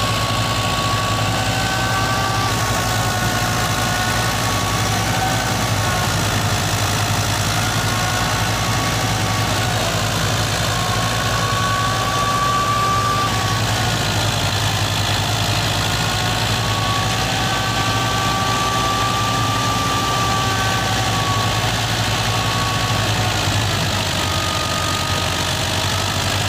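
Fiat 640 tractor's four-cylinder diesel engine running steadily under load, driving a wheat thresher. A wavering, high-pitched whine from the machinery sits over the engine drone.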